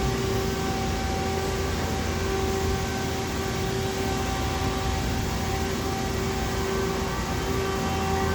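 Steady electric hum of a powered-up Mazak QTS-350 CNC turning center's motors and pumps, running without cutting. A low drone carries a few steady whining tones, one of which fades in and out.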